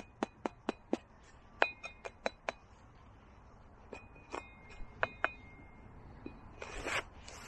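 A string of sharp metallic clinks, each with a short high ring, coming in two clusters, then a brief scraping rustle near the end.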